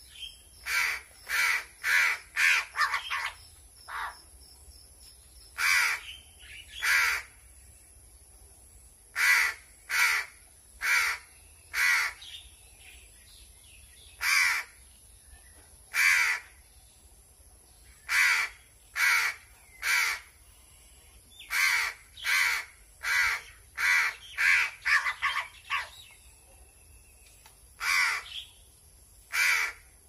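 A hungry tame crow cawing loudly again and again as it is hand-fed, begging for food. Its short, noisy caws come about once a second, now and then in quick runs of three to five.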